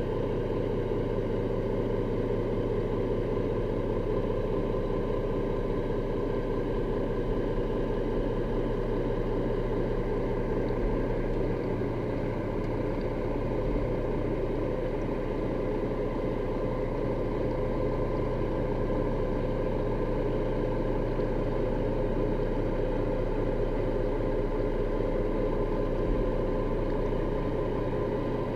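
Steady drone of a boat motor heard underwater, with several held tones and a low hum that stay constant throughout.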